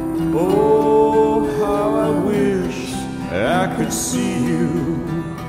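Background music: a slow piece with long held notes, several of which slide in pitch, and a rising swoop a little past the middle.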